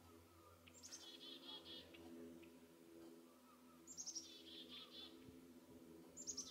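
A small songbird sings a short phrase three times, about 1 s in, about 4 s in and near the end. Each phrase is a quick falling run of very high notes followed by a string of rapid, lower repeated notes. A faint steady low hum runs underneath.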